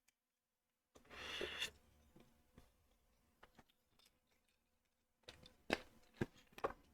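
LEGO Technic plastic parts being handled: a short rustle about a second in, then several sharp plastic clicks near the end as pieces are pressed or knocked together.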